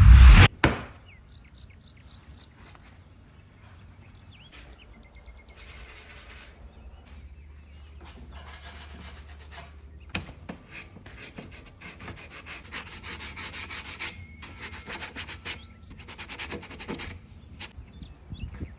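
A loud knock right at the start, then sandpaper rubbing on a particle-board drawer corner in runs of scratchy strokes that stop and start, sanding away the crumbling, blown-out edge.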